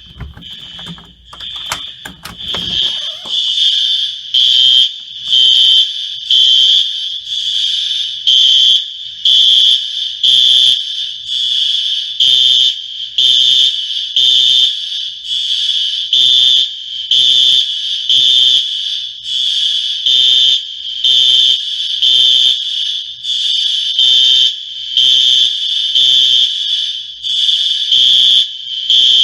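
Apartment building fire alarm sounding: a loud, high-pitched electronic tone pulsing about once a second, with the alarm carrying on more faintly between pulses. Rustling and knocks in the first few seconds, before the alarm grows loud.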